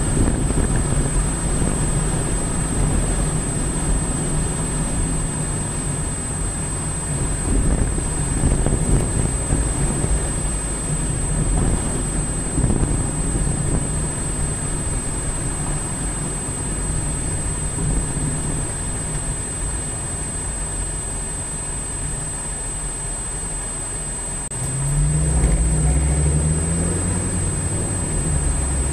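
Car driving in city traffic, heard from inside: a steady low rumble of engine and road noise with a thin, steady high-pitched whine under it. Near the end a louder low engine note swells and rises in pitch.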